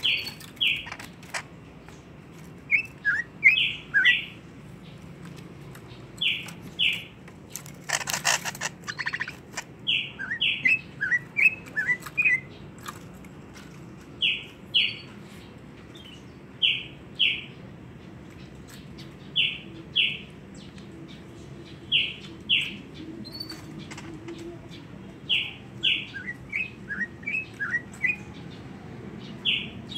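A pet songbird chirping: pairs of short, high notes repeated every two to three seconds, with runs of quicker falling chirps in between. A short burst of noise comes about eight seconds in.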